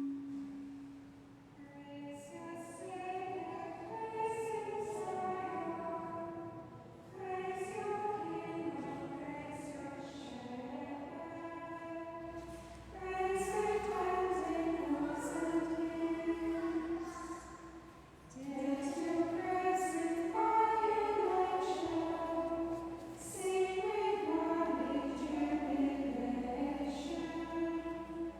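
Choir of nuns singing a chant in phrases, with short pauses for breath between them.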